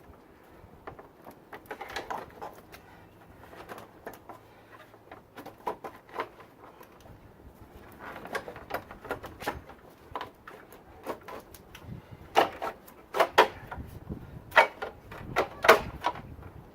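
Timing cover being worked into place on a Ford 2.3 L Lima engine: irregular clicks and knocks of the cover against the engine front, sparse at first, then louder and quicker in the last few seconds.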